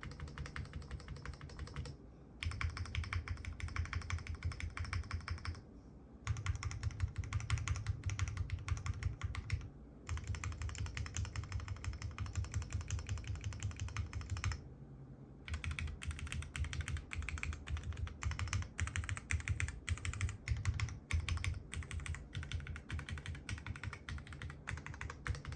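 Fast typing on an Owlab Spring custom mechanical keyboard with lubed Cherry MX Vintage Black linear switches, an aluminium plate and GMK keycaps: a very soft, chalky clatter of keystrokes. The keystrokes come in long rapid runs broken by short pauses, the longest about a second, roughly halfway through.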